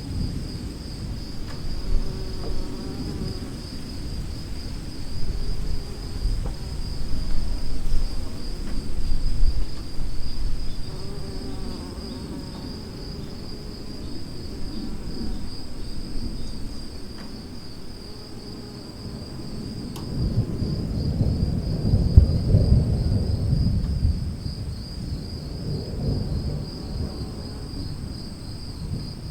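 Storm ambience: low, rolling thunder rumbles that swell and fade, loudest about two-thirds of the way through, over a steady high-pitched chorus of chirping insects such as crickets.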